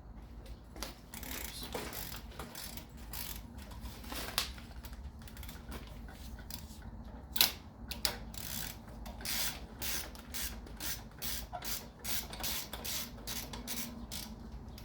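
Hand ratchet wrench clicking while 12 mm bolts are worked loose on an engine, with one sharp loud click about seven seconds in and a fast run of ratchet clicks after it.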